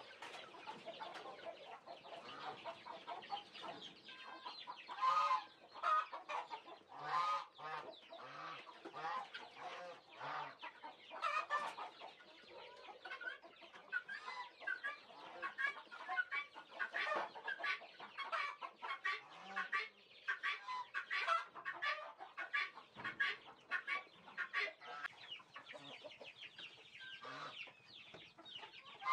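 A flock of farm poultry clucking and calling, many short overlapping calls one after another throughout.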